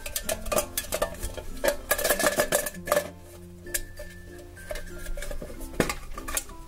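Printed metal tin handled in the hands, its body clinking and tapping in a quick run for the first three seconds, then a few sharp clicks about six seconds in as its metal latch is undone and the lid opens. Light background music plays underneath.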